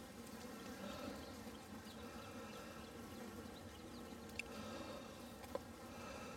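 Faint, steady hum of many honeybees buzzing in a package, with a couple of light clicks in the second half.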